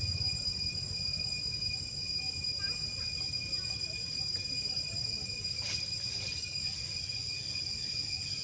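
Insects trilling steadily at a few high pitches over a low rumble, with one short faint click a little past halfway.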